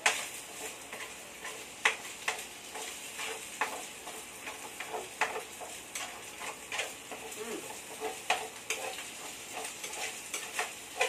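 Meat frying and sizzling in a nonstick frying pan as its juices cook down, with a spatula scraping and clicking against the pan at irregular intervals as it is stirred.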